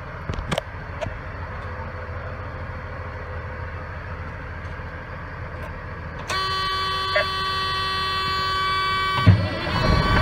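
A steady buzzing warning tone sounds in the truck cab for about three seconds, the low-air-pressure warning with both air tanks below 60 psi. It cuts off with a thump as the truck's engine is cranked and starts, and a louder engine rumble follows near the end.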